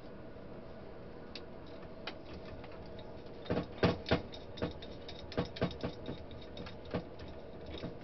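Irregular light clicks and taps of metal coaxial-cable F-connectors being unscrewed and handled, a dozen or so, bunched in the middle, over a faint steady hum.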